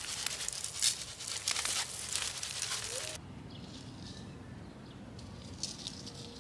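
Wildflower seeds shaken out of a paper shaker packet: a dry rustling hiss of many small seeds spilling onto soil, cut off suddenly about three seconds in. Quieter outdoor background follows, with a few faint bird chirps near the end.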